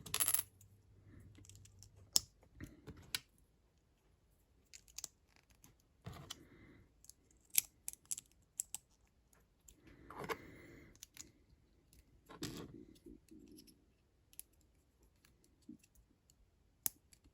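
Small plastic LEGO pieces being handled and pressed together: scattered faint clicks and brief rustles.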